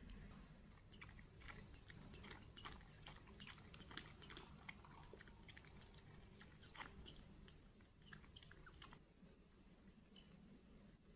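Faint, quick, irregular wet clicks of a baby monkey sucking milk from a feeding bottle. The clicks stop about nine seconds in.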